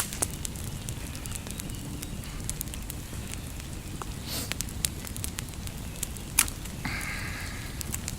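Wood campfire crackling with scattered sharp pops, a couple of them louder about four and a half and six and a half seconds in.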